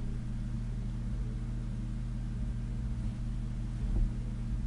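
Steady low hum with a faint hiss behind it, and a soft thump about four seconds in.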